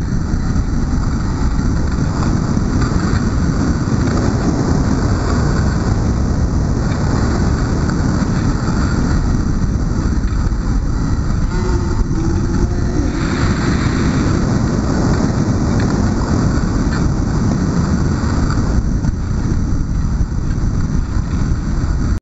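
Steady rushing wind noise on the microphone of a camera carried at skating speed round an ice rink, a heavy low rumble with no let-up.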